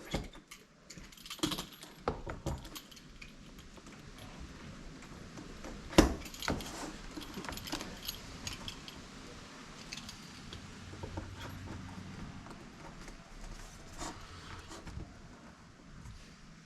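Handling noises from rescreening a window screen, with scattered clicks and light rattles of the screen frame and mesh as the rubber spline is pressed into the groove with a roller tool. There is one sharp knock about six seconds in.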